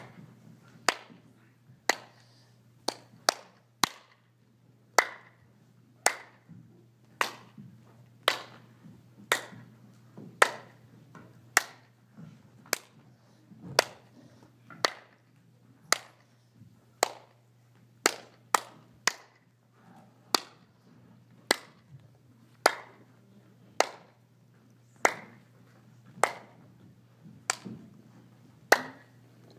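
Hand claps keeping a slow, steady beat for dancers, about one clap a second with an occasional extra clap in between. A faint steady low hum runs underneath.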